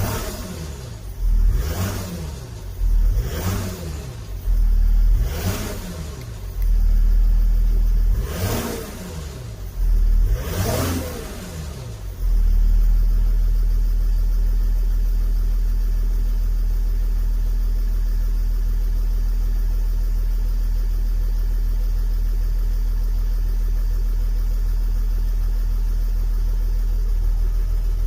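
Mercedes OM642 3.0 V6 diesel engine revved in about six quick blips, then held at a steady raised speed from about halfway in. It carries the rattle that the owner traces to the high-pressure fuel pump, which goes away when the pump's pressure regulator solenoid is unplugged.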